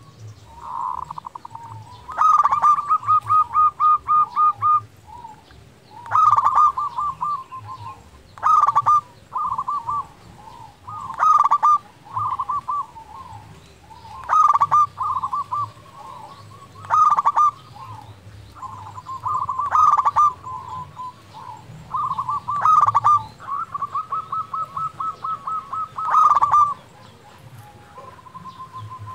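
Zebra dove (perkutut) singing: about ten short phrases of rapid, rolling coos, one every two to three seconds.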